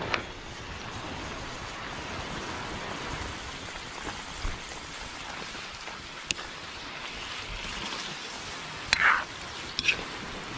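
Coconut milk cooking in a wok, a steady bubbling sizzle as it is cooked down until it starts to release its oil, with a few short clicks, the loudest about nine seconds in.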